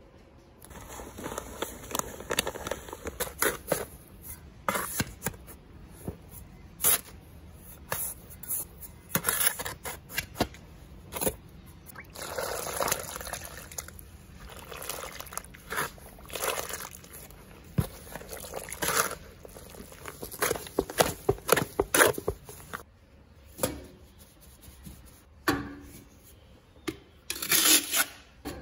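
A steel trowel scraping and stirring wet heat-resistant mortar in a rubber bucket, in irregular gritty, sloshing strokes with short pauses. Near the end, the trowel is spreading the mortar on metal.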